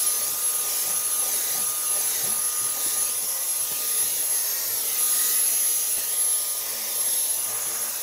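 Cordless handheld vacuum cleaner running steadily with a high motor whine as its nozzle is drawn over a car floor mat.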